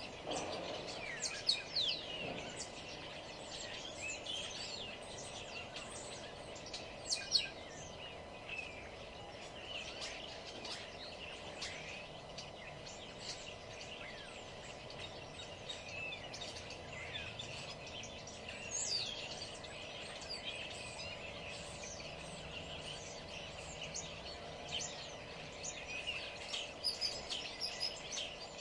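Several songbirds chirping and singing in quick, overlapping short phrases, busier in a few spells, over a steady low background hum.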